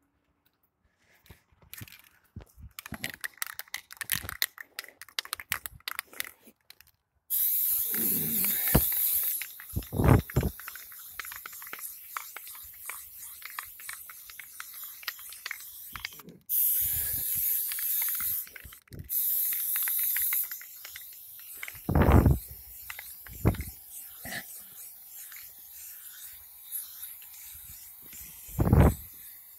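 Aerosol spray paint can hissing in three bursts of a second or two each as a throwup is filled in, after a stretch of rattling clicks, with a few dull knocks between.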